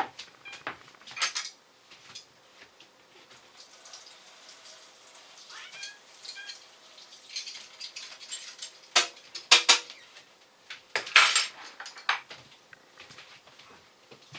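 Dishes and kitchen utensils clattering as they are handled and set down during washing up, a run of sharp knocks with the loudest clusters about nine and eleven seconds in. A short wavering high-pitched sound comes about six seconds in.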